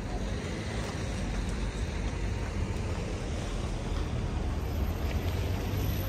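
City street ambience on a walk: a steady low rumble with an even hiss above it.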